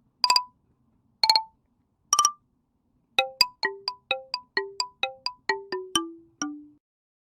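A short musical jingle of bright struck or plucked notes: three single notes about a second apart, then a quick run of about a dozen notes falling step by step in pitch.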